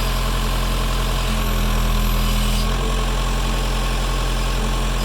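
Backhoe's diesel engine running steadily. A higher hum joins in about a second in and drops away near three seconds.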